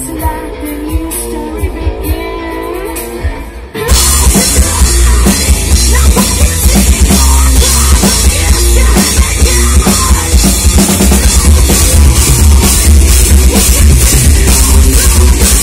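Live metal band playing: a quieter passage, then about four seconds in the full band comes in loud with heavy distorted guitars, bass and pounding drums.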